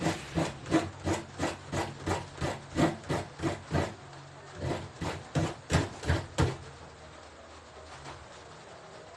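Coconut being grated by hand over a basin, in quick rhythmic scraping strokes about three a second, pausing briefly around four seconds in and stopping about six and a half seconds in.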